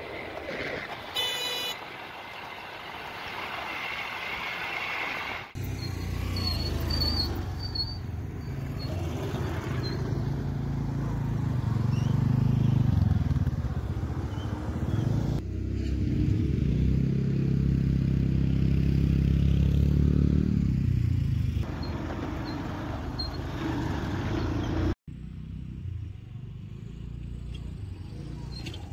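Motor scooters and motorcycles riding past one after another, their engine note rising and falling as each goes by, in several separate takes that cut in and out abruptly. A short high horn beep about a second in.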